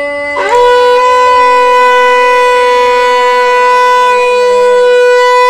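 Conch shell (shankha) blown in one long, loud, steady note. It begins about half a second in with a short scoop up in pitch and holds to the end. A lower blown note is just ending at the start.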